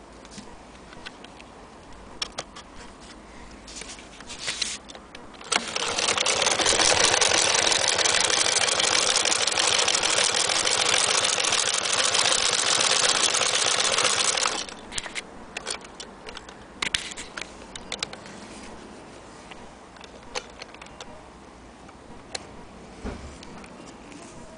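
Antique hand-crank Vesta sewing machine running and stitching: a fast, steady mechanical clatter that starts about five seconds in and stops after about nine seconds. Scattered light clicks and knocks from handling the machine come before and after the run.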